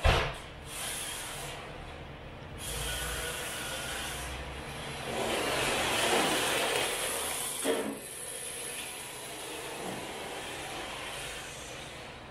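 MST rear-wheel-drive RC drift car running on a concrete floor, its plastic drift tyres scrubbing and its motor running. The sound swells as the car passes close about five to seven seconds in, then fades as it drives away. A sharp knock comes right at the start and a smaller one just before eight seconds.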